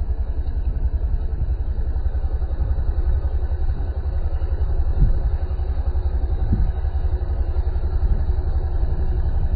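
Steady low rumble of a moving vehicle, heard from on board.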